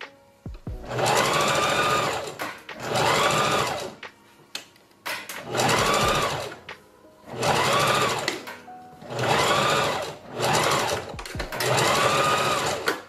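Electric sewing machine stitching a hair weft onto a wig cap in about six short runs, the motor speeding up and slowing down within each run, with brief pauses between them.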